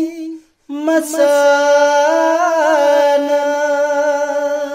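A man singing a Manipuri naat unaccompanied. A held note breaks off about half a second in, then a new note is held for about four seconds with a wavering ornament partway through.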